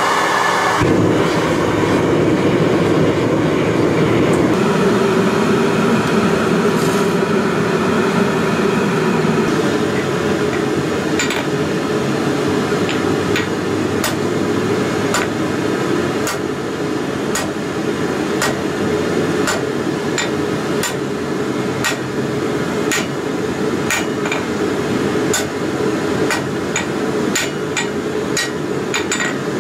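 Hand hammer striking a red-hot mild-steel flat bar on an anvil, about one blow a second, starting some ten seconds in. Under the blows, the forge gives a steady rushing noise throughout.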